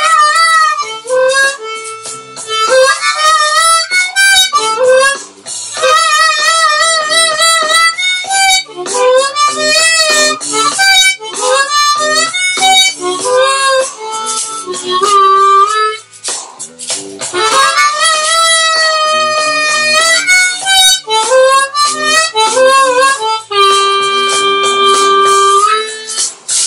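Harmonica played solo in a loose run of wavering and bent notes. It ends on one long held note near the end.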